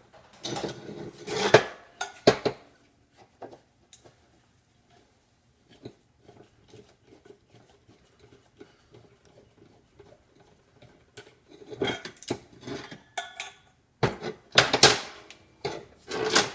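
Metal clinking and rattling of locking pliers (Vise-Grips) being handled and clamped onto the exhaust wrap. It comes in two bursts, one at the start and a longer one in the last few seconds, with faint scattered ticks between.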